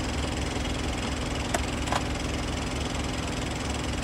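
An engine idling steadily, a low even rumble with a constant hum. Two short sharp clicks come about a second and a half and two seconds in.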